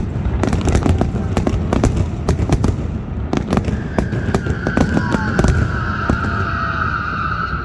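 Aerial fireworks going off in quick succession: rapid sharp cracks and pops over a deep rumble of bursts. The cracks thin out in the second half, while a steady high tone starts about four seconds in and holds to the end.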